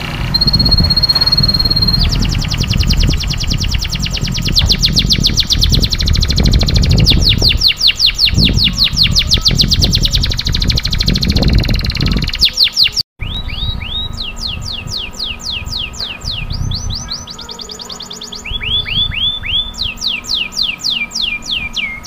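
Domestic canary singing a long song of rolled trills: a short held whistle, then a long run of very fast repeated notes, a brief break past the middle, then trills of quickly falling notes.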